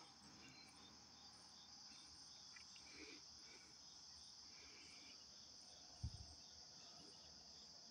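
Faint, steady chorus of crickets, an even high trill, with a brief soft thump about six seconds in.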